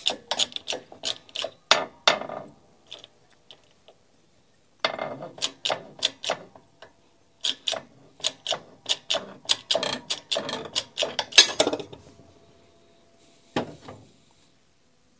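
Shop press working the balancer out of a sander base through an old motor armature used as a drift: runs of quick metallic clicks and ratcheting, about four or five a second, with a pause partway through and a single knock near the end.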